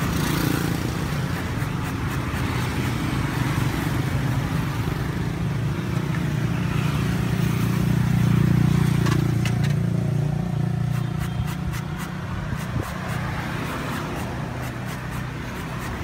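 Road traffic: a passing motor vehicle's engine hum swells to its loudest a little past halfway and then fades. Short clicks and light scrapes come through in the second half.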